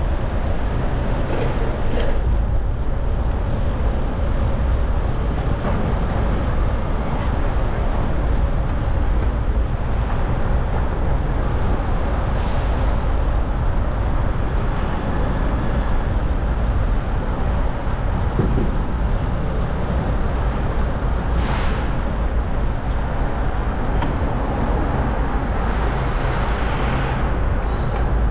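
Steady road-traffic noise from buses, trucks and cars, heard while cycling, with a heavy low rumble of wind on the microphone. A couple of short hisses rise above it partway through.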